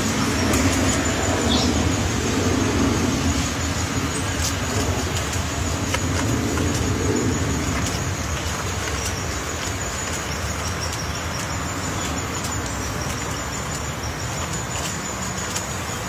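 Steady rushing background noise, with a low hum that fades about halfway through. A few faint, irregular sharp taps come from a pileated woodpecker chiselling wood out of a tree trunk.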